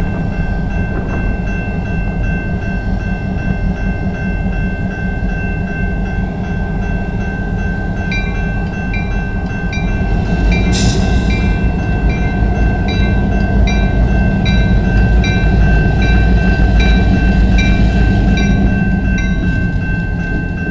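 Two EMD GP38-2 diesel locomotives, each with a 16-cylinder two-stroke engine, running as they move past at low speed, getting louder about halfway through. From about eight seconds in, a level-crossing bell rings steadily, about one and a half strokes a second, and a brief hiss comes about eleven seconds in.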